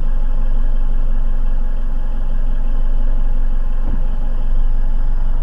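Steady car engine and road noise heard from inside the car's cabin, picked up by a dashcam.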